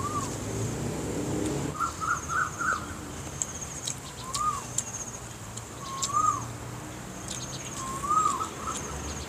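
A bird calling repeatedly, single whistled notes that rise and fall, about one every two seconds, with a quick run of short notes about two seconds in. A steady high insect buzz runs underneath, with a few short crisp clicks of chewing close by.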